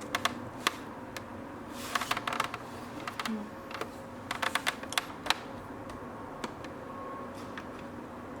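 Typing on a computer keyboard: irregular runs of key clicks broken by short pauses, thinning to a few single keystrokes near the end.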